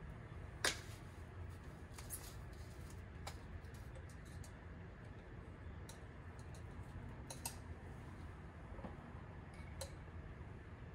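Scattered small clicks and taps of metal plumbing fittings and hand tools being handled, with one sharper click under a second in, over a low steady hum.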